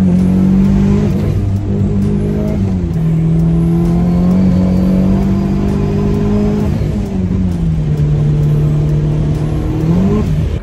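Car engine heard from inside the cabin while driving: a steady drone whose pitch drops about two seconds in and again around seven seconds, then climbs near the end.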